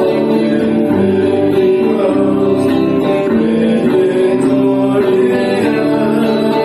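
Music led by guitar, played steadily at an even level.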